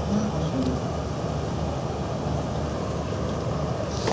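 Steady low rumble of the Michigan paddle-wheel cruise boat under way, heard on its open deck with some wind noise. A brief high hiss or click comes about four seconds in.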